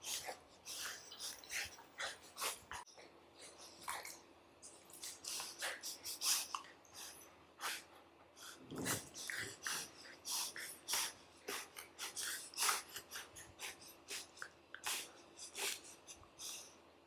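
Golden retriever puppies play-wrestling in a plush dog bed: a run of short, irregular scuffles, snuffles and mouthing noises as they roll and play-bite.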